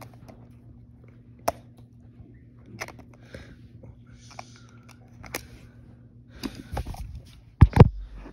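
Scattered small clicks and rustles of handling over a low steady hum that stops about six seconds in, then a run of loud thumps and knocks near the end as the phone doing the recording is handled and covered.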